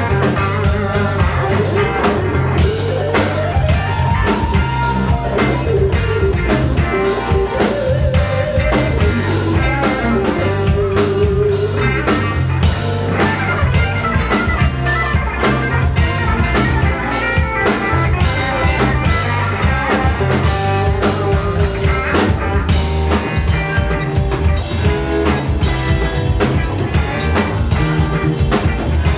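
Live rock band playing an instrumental passage, with electric guitar lines that slide in pitch over a steady drum kit beat.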